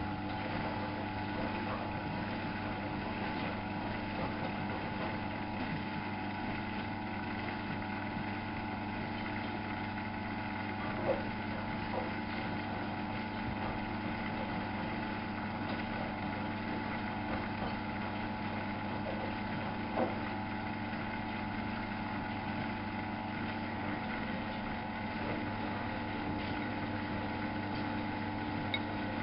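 Miele Novo Super W933 washing machine running with a steady hum, and a brief click about 11 seconds in and again about 20 seconds in.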